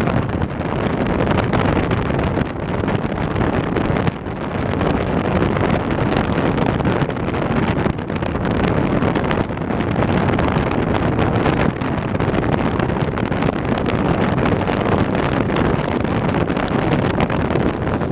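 Rushing airflow buffeting the microphone of a camera mounted on a tandem hang glider in flight: loud, steady wind noise.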